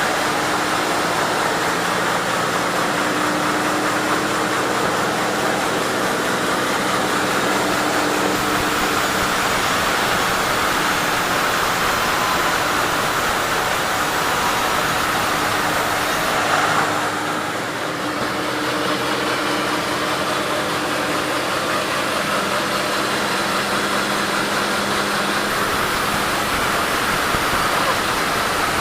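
Sawmill machinery running: a steady engine-like drone with an even hiss over it, which dips briefly a little past halfway.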